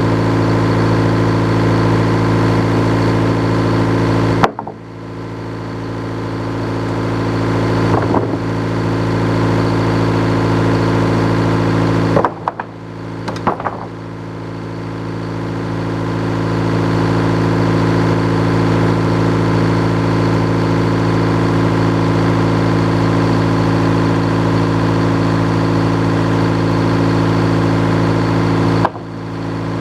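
Sawmill engine running steadily at a constant speed, broken by a sharp knock about four seconds in, a short cluster of knocks around twelve to thirteen seconds, and another knock near the end.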